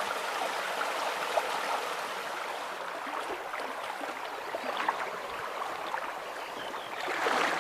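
Steady rush of a flowing stream or river, with a few small clicks and splashes scattered through it.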